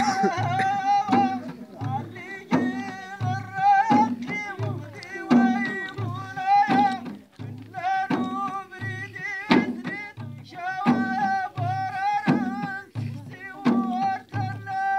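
A Moroccan folk troupe's men singing together in wavering melodic lines over a steady low drum beat, with sharp percussive strikes every second or two.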